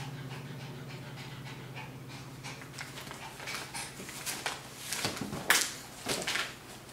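A whelping mother dog panting rapidly and steadily, just after giving birth. About halfway through the panting gives way to irregular sharp crackles and rustles as she turns and works over her newborn puppy on the newspaper bedding, loudest near the end.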